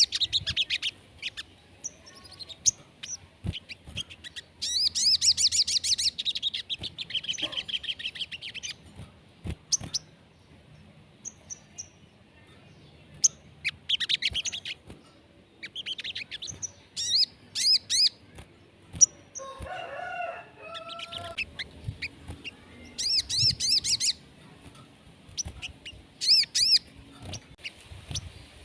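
A sogon songbird singing in repeated bouts of rapid, high-pitched trills and chirps, separated by short pauses. This is the bird's full 'gacor' song, used as a stimulus to prompt other sogon birds to sing. About twenty seconds in there is a lower-pitched call that sounds like a chicken.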